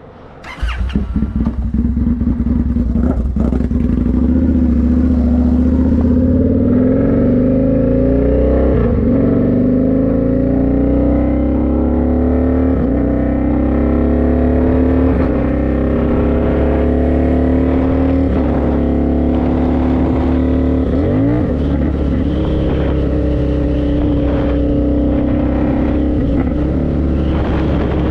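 Indian FTR1200's 1203 cc V-twin pulling under medium throttle, its pitch climbing slowly as it gathers speed, with brief dips where it is shifted up through the gears using a clutchless quick shifter.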